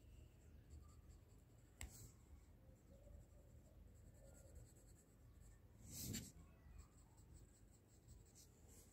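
Faint scratching of a pencil drawing lines on paper, with a sharper tick about two seconds in and a brief louder rustle about six seconds in.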